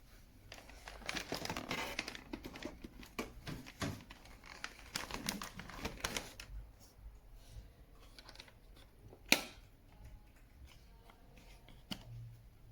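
Handling noises: a quick run of small clicks, rattles and rustles, thinning out later, with one sharp louder click about nine seconds in.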